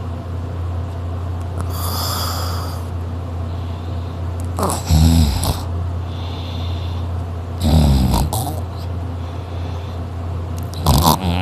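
A person snoring loudly in sleep: three loud snores about three seconds apart, near the middle, later on and at the end, with a softer hissing breath early between them. A steady low hum runs underneath.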